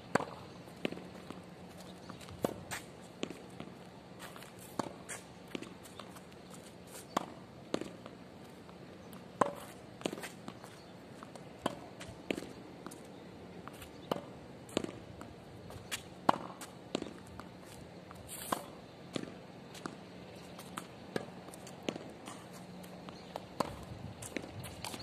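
Footsteps and shoe taps on a hard tennis court, sharp and irregular, about one or two a second, as a player steps through forehand swings. A faint steady hum runs underneath.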